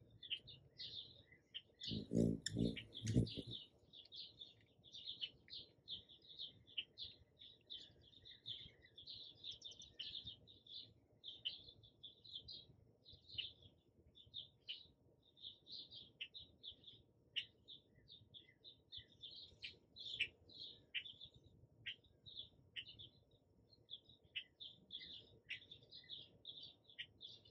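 Faint bird chirping: a continual run of short, high chirps, several a second. About two seconds in, a few louder low thumps.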